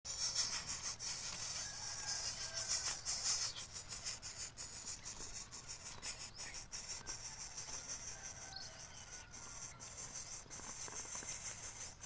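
Steady high-pitched chirring of insects, louder in the first few seconds, with a few faint short whistles and scattered light clicks.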